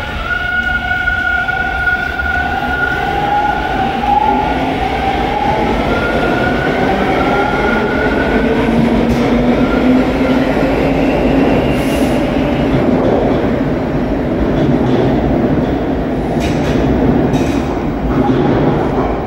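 TTC Line 2 subway train of T1 cars running through the station: its motors whine in two tones that rise slightly in pitch over the first few seconds, as a train does when gathering speed, and then give way to a steady rumble of wheels on rail. A few sharp clicks come in the second half.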